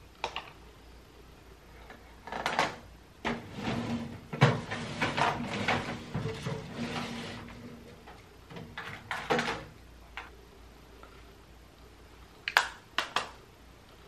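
Makeup items rattling and clicking in a plastic storage drawer as they are rummaged through and the drawer slides, with a quick run of sharp clicks near the end.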